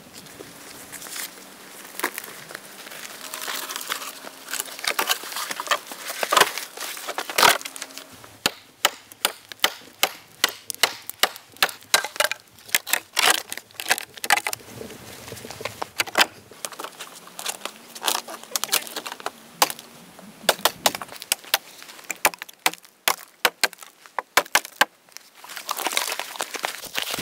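Dry, weathered dead branches being snapped and broken off by hand: a long run of sharp cracks and splintering wood, many snaps in quick succession.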